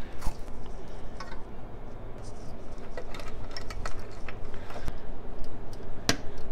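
Fabric harness tape being unrolled and wrapped around speaker wires, with irregular small clicks and rustles as the wiring and plastic speaker bracket are handled; a sharp click about six seconds in.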